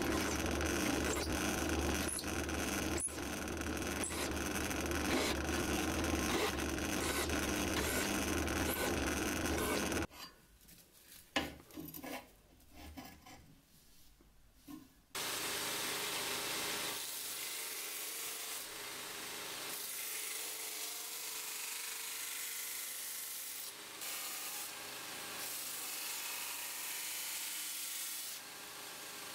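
A drill press runs with a countersink bit cutting into holes in a steel saw-blade knife blank. After about ten seconds the sound stops, leaving a few seconds of quiet with a couple of clicks. Then a belt grinder grinds the steel blank's edge with a steady high hiss.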